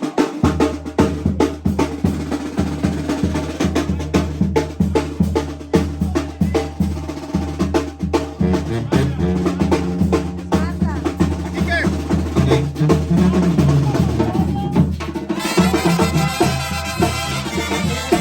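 A band playing: drums with snare rolls and bass drum strokes over a steady bass line, the sound growing fuller as more instruments come in about fifteen seconds in.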